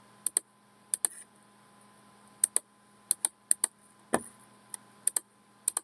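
Scattered sharp clicks of a computer mouse and keyboard, many in quick pairs, over a faint steady hum.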